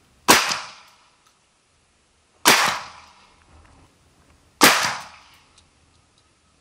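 Three shotgun blasts about two seconds apart, each a sharp crack with a short fading echo: buckshot loads fired from an AK-pattern, box-magazine shotgun.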